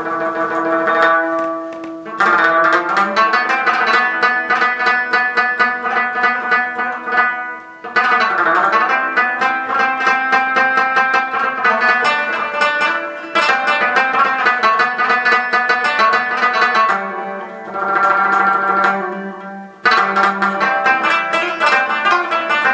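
Background music on a plucked string instrument: quick runs of notes in phrases that break off briefly a few times.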